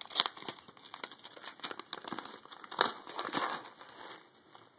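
Folded paper packet being handled and unfolded, crinkling in irregular bursts, loudest about a quarter-second in and again near three seconds, then dying down near the end.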